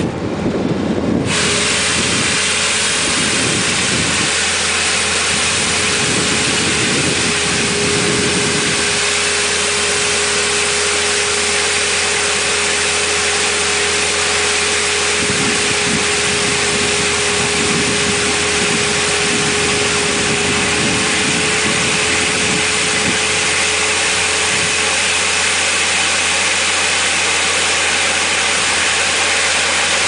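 Skid steer engine running while its hydraulic rotary gutter broom sweeps, a loud, steady noise. A steady hum sits over it from about a second in until near the end.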